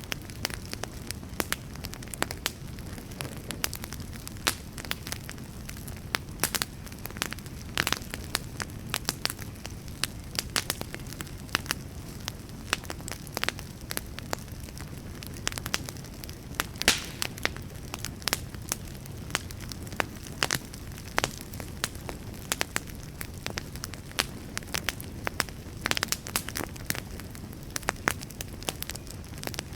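Wood fire burning, with a steady low rumble and frequent irregular crackles and pops of burning logs.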